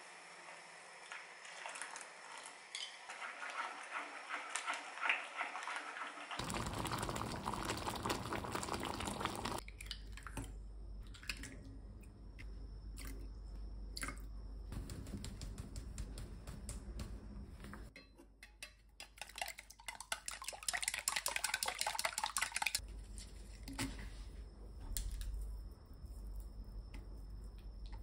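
Kitchen cooking sounds. First, chopsticks stir a sauce being thickened with potato starch in an enamel pot. Then a metal spoon clinks against a stainless steel bowl as liquid is spooned into raw eggs, and near the end there is a few seconds of clattering as the eggs are beaten.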